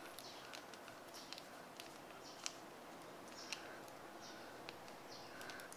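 Faint handling sounds: a scattering of light clicks and small taps as a thin plastic tray of moulded candy fries is handled and the fries are picked out. The clearest tap comes about two and a half seconds in, with another about a second later.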